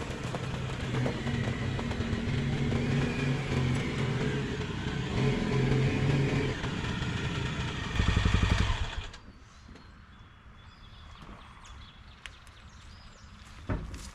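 A vehicle engine running steadily, with a brief louder surge about eight seconds in, then shut off about nine seconds in, followed by a few faint clicks.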